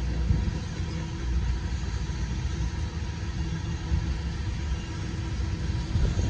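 Freight train of tank cars rolling past: a steady low rumble of steel wheels on rail.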